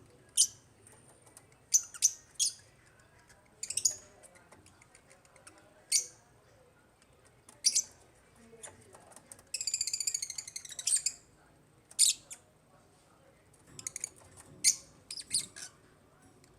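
Lovebirds giving short, shrill chirps every second or two, with a rapid chattering call lasting about a second and a half near the middle.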